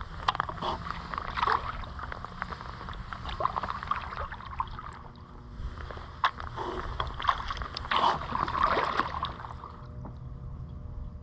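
Kayak paddle strokes, the blades dipping and splashing in the water, with water sloshing against the boat. Two runs of strokes with a short pause about halfway through.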